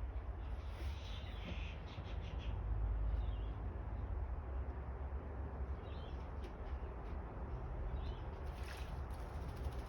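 Short high bird chirps every couple of seconds over a steady low rumble, with brief splashy bursts about a second in and again near the end, typical of a small bird bathing in a bird bath.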